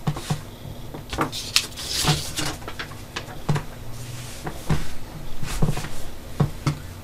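Several scattered light knocks and clicks, with a short rustling noise about two seconds in, over a low steady hum.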